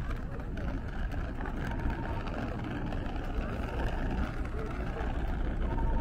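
Steady rumble of road traffic, with no single sharp event standing out.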